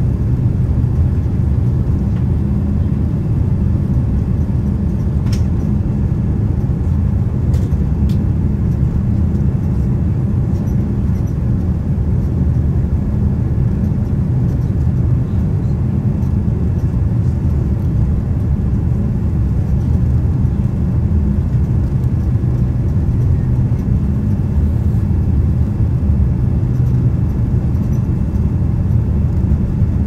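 Steady low rumble of a Boeing 787-9 cabin on final approach: engine and airflow noise heard from a window seat, with a few faint clicks in the first ten seconds.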